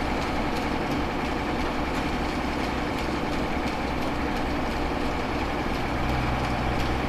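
Heavy diesel engine running steadily at a low, even speed. A deeper steady tone joins about six seconds in.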